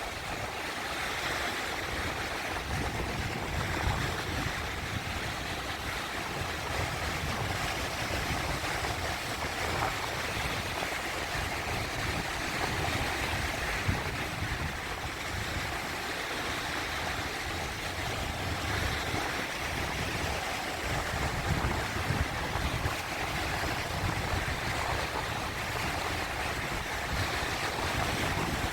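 Sea waves washing over rocks, a continuous rush of surf with gentle swells, and some wind noise on the microphone.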